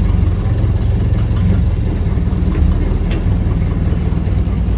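Boat engine idling: a steady, low, rapidly pulsing engine note.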